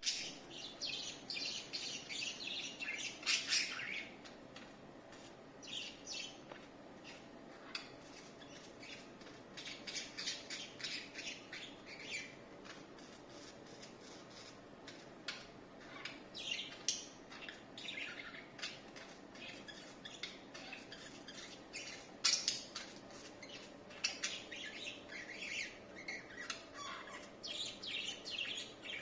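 Budgerigars chirping and chattering in quick, high-pitched bursts that come and go, with a few louder squawks.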